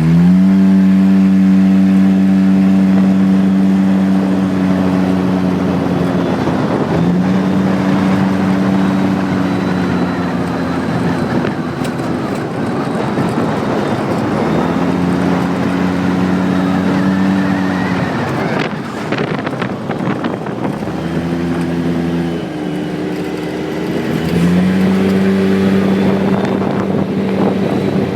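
ATV engine running under throttle: the revs climb right at the start, hold steady, then drop and pick back up several times as the rider eases off and gets back on the gas.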